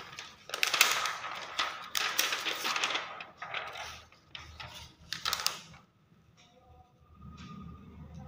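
A sheet of thin 50-micron clear polyester film crinkling and crackling as it is handled and flexed by hand, in several loud bursts over the first six seconds, then quieter near the end.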